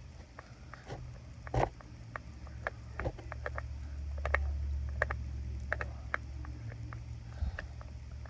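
Screwdriver turning a screw in the plastic face of a three-outlet power tap: irregular small clicks and scrapes of the tip on the screw head, over a low rumble that is loudest midway.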